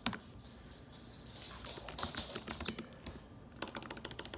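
Typing on a computer keyboard: a knock right at the start, then a run of quick key clicks about a second and a half in, a short pause, and another run near the end, as a chat message is typed.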